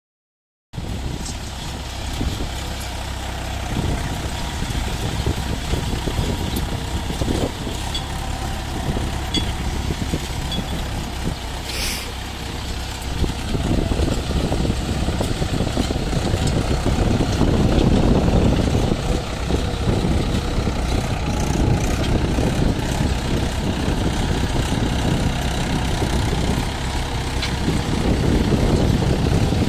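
Mahindra 475 DI tractor's diesel engine running steadily under load while pulling a tine cultivator through dry soil. The rumble starts just under a second in and grows louder past the middle.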